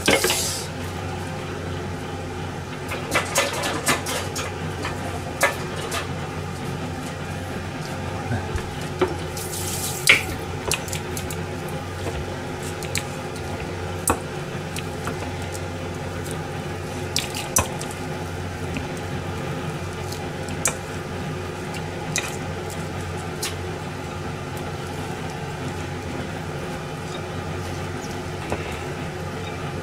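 Metal potato masher mashing boiled potatoes in a stainless steel bowl, with scattered clinks and knocks of the masher against the bowl, the loudest about ten seconds in. A steady hum runs underneath.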